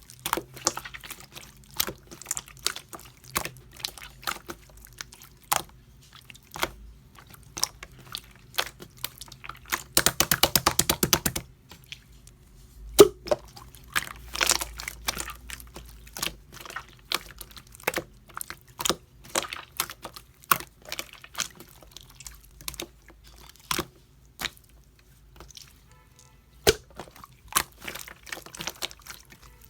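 Slime being squished and pressed by hand, making irregular wet clicks and pops. About ten seconds in there is a quick run of even clicks lasting a second or so, and a sharp pop a couple of seconds later.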